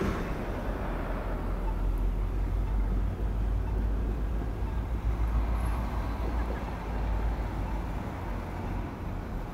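Diesel locomotive of a commuter train pulling slowly away down the track: a steady low rumble that eases a little near the end.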